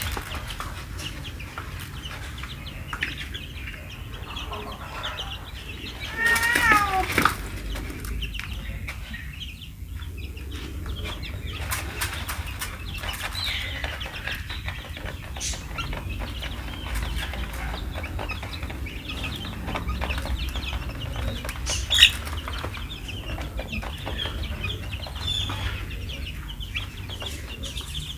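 Fifteen-day-old chicks peeping while they peck grain from a feeder tray, with scattered small taps and wing flutters. A short run of falling peeps comes about six seconds in, and a single sharp tap comes near the end, over a steady low rumble.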